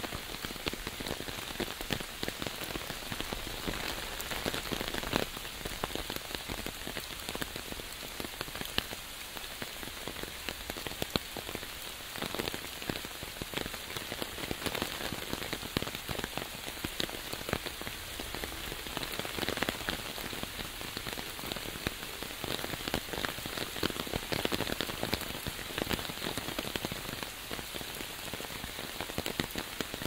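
Steady rain drumming on an umbrella held just overhead: a dense, unbroken stream of individual drop hits over a constant rain hiss.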